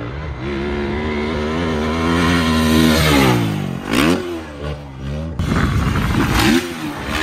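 450cc four-stroke dirt bike engine revving hard, its pitch climbing for about three seconds and then falling away, followed by a couple of shorter revs up and down. A brief rush of noise comes about four seconds in.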